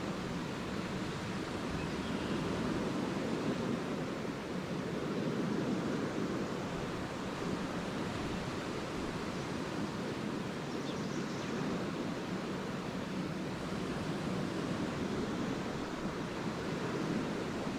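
Small lake waves washing steadily onto a beach, a continuous surf wash that swells and eases gently, with some wind.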